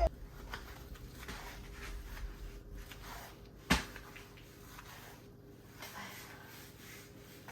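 Quiet room with faint rustling and handling noises and a single sharp knock a little past halfway.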